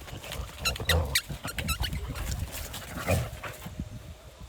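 A run of short, high-pitched animal calls repeated quickly, mostly in the first half, with a few soft low thumps of digging in dirt.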